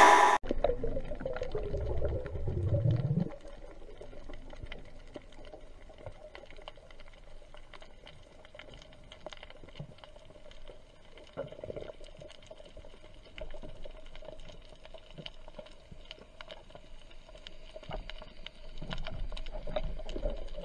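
Underwater ambience picked up by a diver's camera: a low water rumble for the first three seconds, then a faint steady hum with scattered small clicks and crackles, and the rumble of moving water returning near the end.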